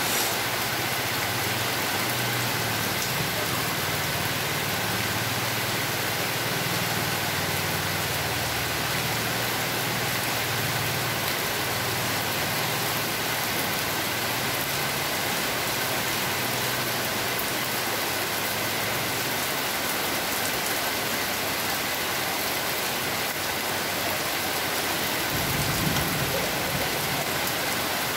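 Heavy, steady downpour: an even hiss of rain splashing on wet paving. A low hum sits underneath for the first two-thirds, and a short low rumble comes near the end.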